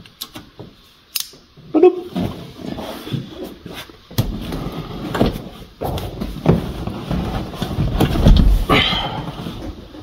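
Clunks, knocks and rustling as an aftermarket racing seat on its mounting bracket is manoeuvred into place over the car's floor mounts, with the heaviest thud about eight seconds in.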